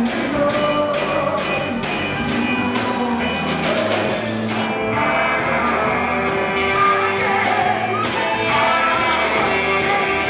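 Live rock band playing a song with a man singing lead vocals. Drums and cymbals keep a steady beat, drop out for about two seconds near the middle, then come back in.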